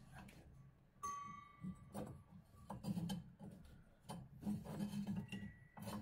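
Rubber drive belt being worked off a washing machine's motor and drum pulleys: scattered light knocks and clicks, with a metallic clink about a second in that rings on for over a second.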